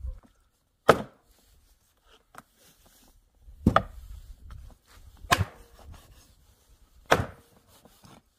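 Chopping on a cutting board: four hard blows one and a half to three seconds apart, with lighter knocks in between.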